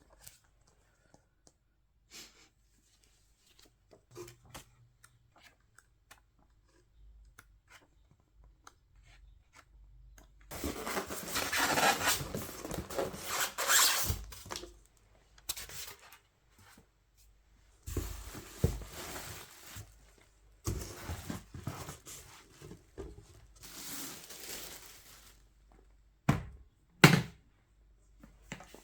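Packaging being handled and torn open: scattered small clicks and taps, then several stretches of rustling and tearing, and two sharp knocks near the end.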